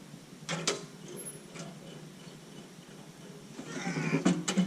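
Metal knocks and clanks of a heavy steel backhoe bucket being handled by hand. There are two sharp knocks about half a second in, then near the end a scraping drag of about a second with two or three sharp clanks, over a steady low hum.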